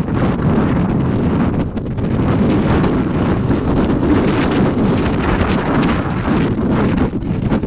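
Storm-force gusty wind buffeting the microphone: a loud, continuous low rumble that swells and eases with the gusts and drowns out the sea surf.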